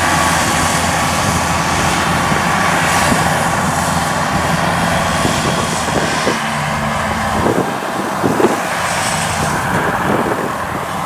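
Rice harvester engine running steadily under load as it cuts through the crop, with a few short clunks in the second half.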